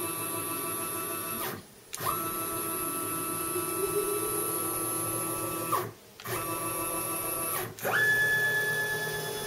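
Stepper motor driving the table's ball screw on a CNC-converted Weiss 30LV mill: a steady whine of many tones as the table traverses. It stops briefly about one and a half seconds in and again about six seconds in, with the pitch gliding up at each restart. The last move, from about eight seconds in, is louder and higher-pitched.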